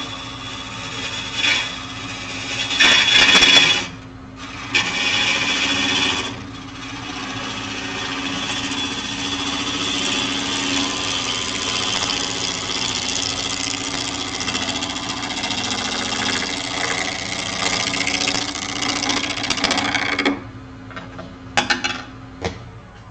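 Wood lathe running while a gouge cuts along a spinning green-wood natural-edge bowl, truing up the wobble it has taken on as it dries. The cutting comes in short passes over the first six seconds, then one long steady cut that stops suddenly about twenty seconds in, leaving the lathe's hum and a few clicks.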